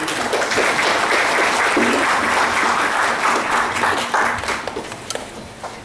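Audience applauding, breaking out at once and dying away over the last second or so.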